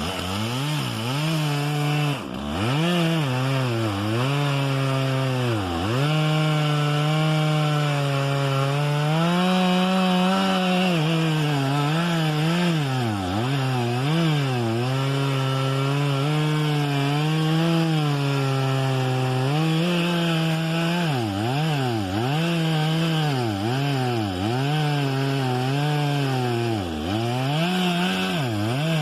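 Chainsaw cutting cedar, running at high revs. The engine speed repeatedly drops and climbs back as the chain bites into the wood, with quicker, more frequent dips in the later part.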